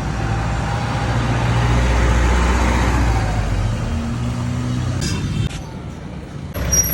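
Town street sounds: a motor vehicle's engine running past, loudest about two seconds in, with voices mixed in. The sound changes abruptly twice near the end, dropping quieter and then jumping back up.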